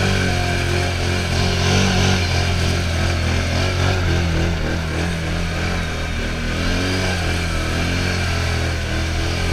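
Can-Am Outlander XMR ATV's V-twin engine running while crawling through swamp mud, its pitch rising and falling with the throttle a few times.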